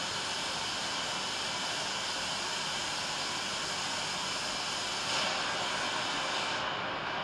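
A steady, even rushing noise like a distant jet engine or a drone of static. It gets slightly louder about five seconds in, and the highest hiss thins out near the end.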